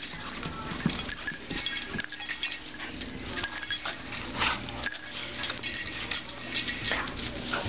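Two dogs play-wrestling, making animal vocal noises and scuffling, with a metal collar tag clinking now and then.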